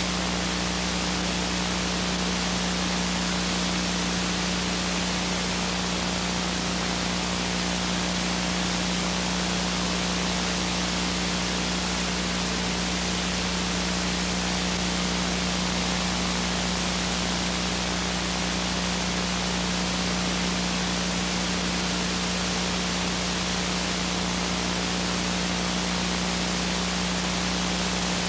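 Steady hiss and static with a constant low hum underneath, the noise of a blank stretch of videotape.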